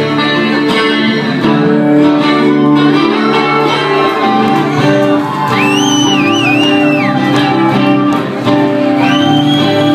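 Two acoustic guitars playing live together, with many ringing notes layered over one another. Two high, wavering calls from the audience rise above the guitars, about six seconds in and again about nine seconds in.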